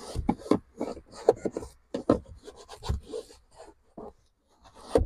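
Towel being rubbed hard over hard plastic interior trim in quick, uneven wiping strokes, a short scrubbing rasp with each stroke.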